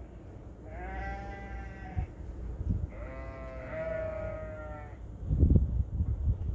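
Two long sheep bleats, each about a second or two, over the steady low idle of a Land Rover Freelander Td4 diesel engine. A cluster of low thumps near the end.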